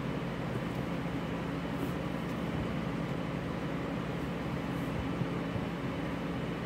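A steady low hum with a hiss over it, an unchanging machine-like drone, with no distinct taps or knocks standing out.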